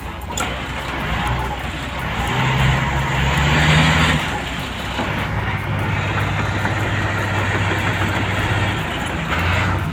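Heavy diesel engine of a tracked log-handling machine running hard under load, a steady low drone that swells louder about three to four seconds in.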